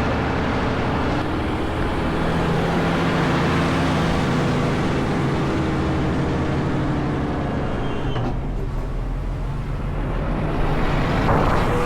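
Fendt 936 Vario tractor's diesel engine working hard as it pushes silage up the clamp, its pitch rising and falling with the load; it eases off about eight seconds in and picks up again near the end.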